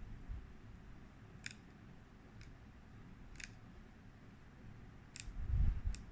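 Fingernail and glass clicking as a tempered-glass screen protector on a phone is picked at to get out a trapped dust particle: about five sharp, small clicks a second or so apart, with low handling bumps near the end.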